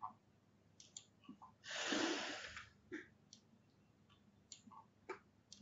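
A few scattered computer mouse clicks, with one breath into the microphone lasting about a second, starting about two seconds in; the breath is the loudest sound.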